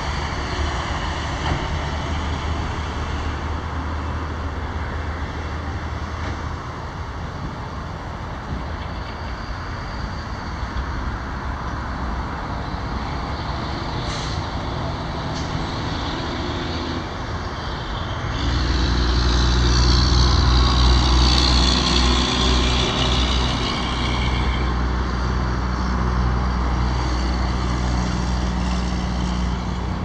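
Steady road traffic noise. About eighteen seconds in, a heavy vehicle comes in much louder, a low engine drone with a hiss over it, easing off somewhat a few seconds later.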